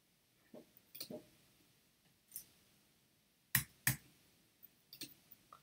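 Computer mouse clicking a few times: faint scattered clicks, then two sharper clicks about a third of a second apart a little past halfway.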